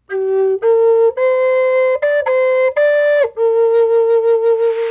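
Wooden flute playing a slow melody of held notes that step upward over the first three seconds, then settle into one long note with a slight waver. A soft hiss comes in near the end.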